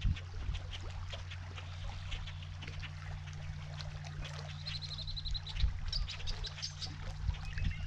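Small waves lapping and trickling against a limestone shoreline over a low steady hum. About halfway through, a bird gives a short, rapid, high trill.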